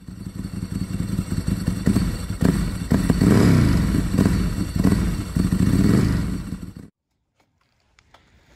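Motorcycle engine revving, its pitch rising and falling several times, then cutting off suddenly near the end.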